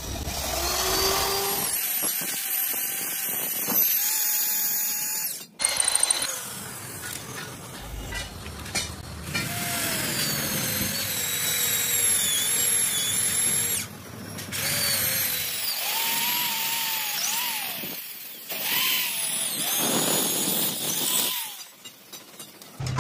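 Heavy electric hand drill boring through a steel plate on a truck chassis rail. Its motor whine wavers in pitch as the bit bites, in several runs with brief stops between.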